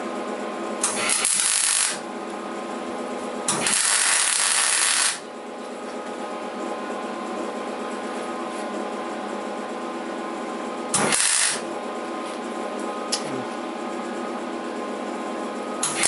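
Electric welder striking short tack welds on steel bar: three bursts of crackling arc hiss, about a second, a second and a half and half a second long, with a fourth starting at the very end. A steady machine hum runs underneath.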